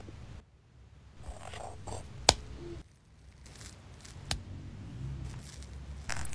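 Hands working cold butter into flour in a glass bowl: soft rustling and scraping, with two sharp clicks, about two and four seconds in. Near the end a louder steady hiss begins as water is poured into the crumbly dough.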